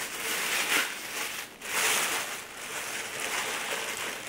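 Tissue paper rustling and crinkling as sheets are pulled open and lifted out of a box, in uneven swells.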